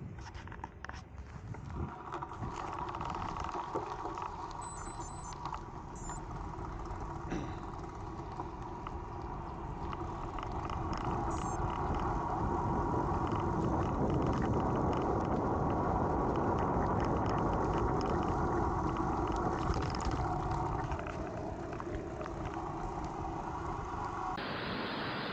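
An engine running steadily, growing louder over several seconds midway and then easing off.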